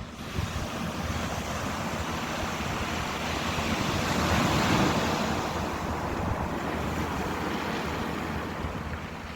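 Ocean waves washing on a shore. A surge swells to its loudest about halfway through, then eases off.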